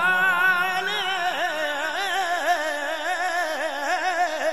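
Male voice singing a naat, holding a long, ornamented melodic line whose pitch wavers up and down continuously, with no clear words. It breaks off near the end.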